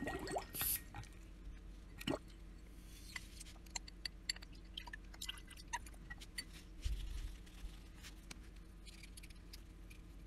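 Scattered light clicks and taps of a clear plastic fountain-pen barrel being handled and rinsed in a plastic cup of water, with a couple of louder knocks in the first two seconds and a dull thump about seven seconds in.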